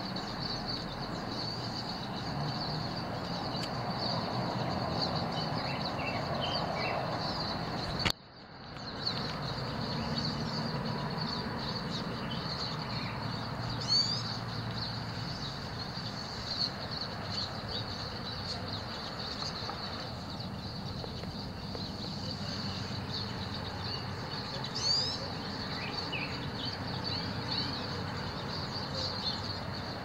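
A flock of finches twittering and chirping continuously, with a louder sweeping call about fourteen seconds in and another about twenty-five seconds in. A low traffic hum sits underneath.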